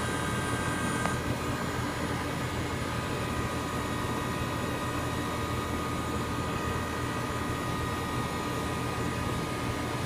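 Heat pump outdoor unit running: compressor and condenser fan making a steady hum and rush of air, with a few faint steady tones over it.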